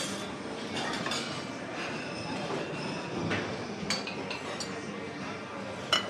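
Crockery and cutlery clinking: several scattered clinks over a steady room hum, the loudest near the end.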